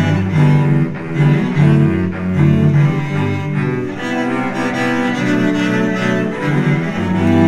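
Several cellos playing together with bows: a low held bass line under moving melody notes that change every fraction of a second.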